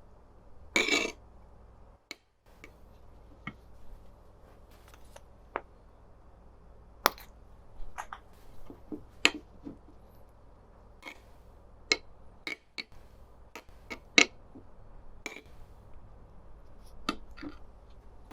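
Kitchen handling sounds while making chicken nuggets: scattered light clicks and taps of utensils and dishes, about twenty, irregularly spaced, over a low hum.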